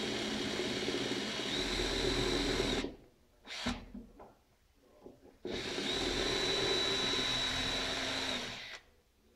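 Electric drill running against a wooden chair frame in two steady runs of about three seconds each, with a high motor whine, and a brief short burst between them.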